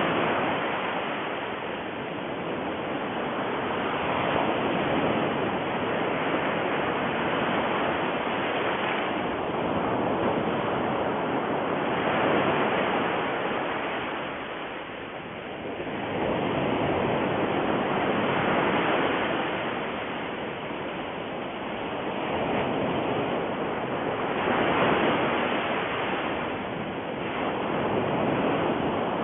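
Rushing noise that swells and fades every few seconds.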